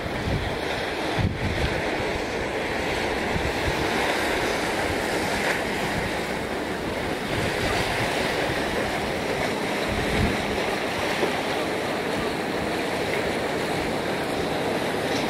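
Wind buffeting the microphone over the steady wash and slosh of harbour water churned up by a ship passing close alongside the quay. Several low rumbling gusts come in the first couple of seconds and again near the middle.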